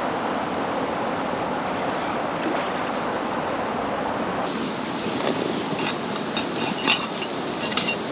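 Steady rush of flowing river water, with a few sharp clicks in the second half.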